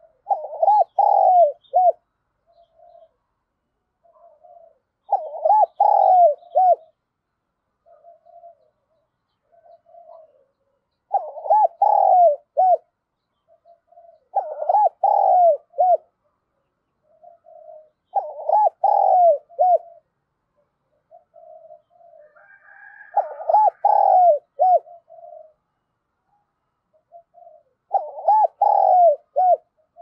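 Spotted dove cooing: the caged decoy bird's calling song, a loud phrase of several coos repeated seven times about every three to six seconds, with soft short coos in between.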